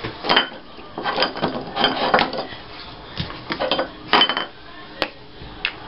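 Rummaging through craft supplies for a glue stick: small hard items rattling and clinking as they are moved about, with two sharp clicks near the end.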